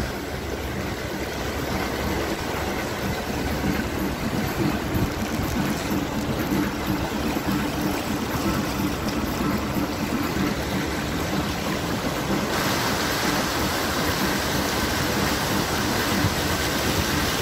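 A car driving slowly through deep floodwater: the engine runs steadily under a continuous rushing and swishing of water around the wheels and body, heard from inside the car. The rushing gets louder and brighter about two-thirds of the way through.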